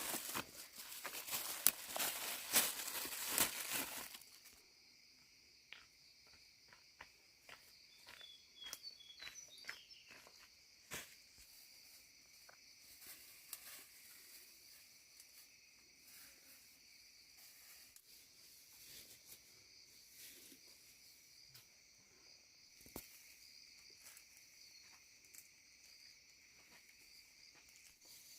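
A burst of loud rustling and tearing for about the first four seconds, then scattered light snaps and rustles over a steady high drone of insects.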